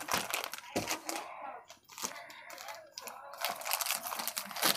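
Clear plastic bag crinkling and rustling as it is handled and pulled off an insulated casserole and its lid, a rapid crackle of many small clicks that eases off briefly around the middle.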